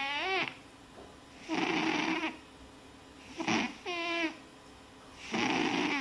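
Sleeping cat snoring, a breath about every two seconds. The breaths alternate between a squeaky whistle that bends in pitch and a raspy snore.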